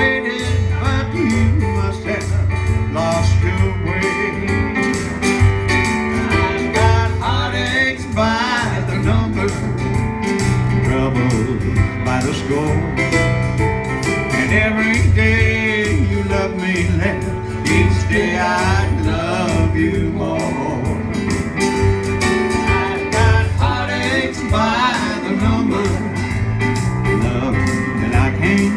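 Live country-style song: a man singing to an acoustic-electric guitar, with a Yamaha CP5 stage keyboard playing chords and bass notes along, all through a PA.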